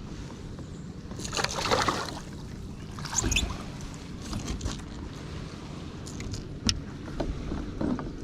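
Water sloshing and handling noises on a kayak: a burst of splashing and rustling about a second in, a shorter one around three seconds, and scattered knocks and clicks against the hull.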